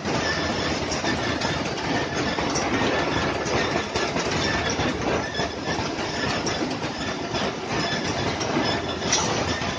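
Powered roller conveyor line running: a steady rattle of metal rollers with scattered clicks and knocks as cartons ride along it.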